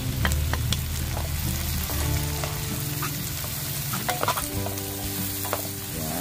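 Diced tomatoes sizzling in hot oil with sautéed onion and garlic in a nonstick wok. A wooden spatula scrapes and taps against the pan as the mixture is stirred.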